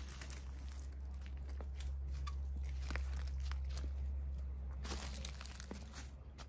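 Footsteps crunching and rustling on dry fallen leaves and gravel, with scattered small crackles over a steady low rumble.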